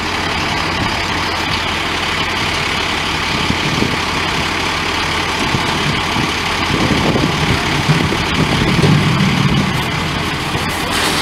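Fire truck engine idling steadily. Near the end, the folded vinyl portable dump tank rustles as it is dragged out.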